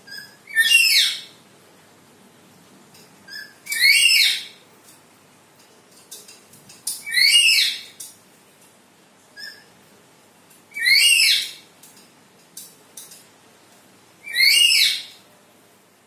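Black-capped lory calling: five loud, shrill whistled calls, one about every three and a half seconds, each led by a short fainter note.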